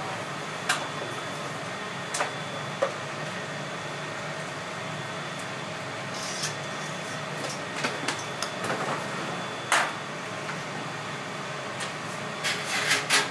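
Restaurant kitchen at work: a steady machine hum with scattered sharp clicks and knocks of utensils and cookware, the loudest about ten seconds in and a quick cluster near the end.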